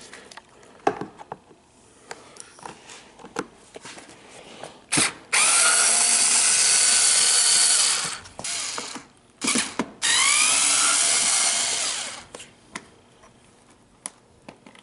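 Cordless drill-driver backing out motor mounting screws: two runs of about two and a half seconds each, its motor whining up in pitch at the start of each run, with short blips of the trigger between them and light clicks of handling before and after.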